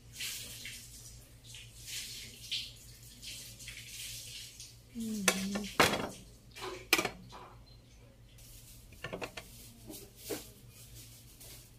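Kitchen knife cutting through ripe mango flesh and tapping and scraping against a plate: soft wet slicing sounds, then a cluster of sharp clicks in the middle and a few more near the end.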